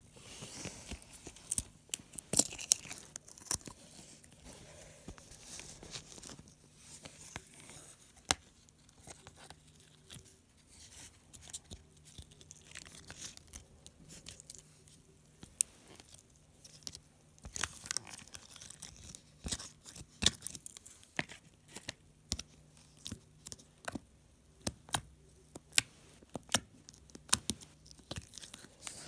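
Purple glitter slime being worked by hand, making irregular sticky clicks and pops, sometimes in quick clusters.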